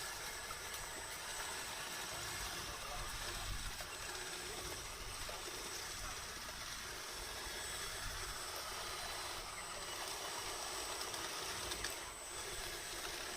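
Radio-controlled model bulldozer working: a steady hissing machine noise with a thin, constant high whine.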